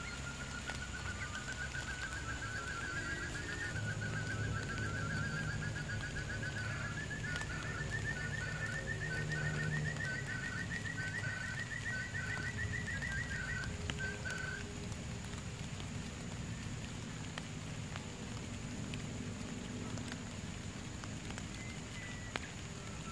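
Bird call: a long trill of rapid notes slowly rising in pitch, with a second series of separate short notes joining about nine seconds in. Both stop at about fourteen seconds.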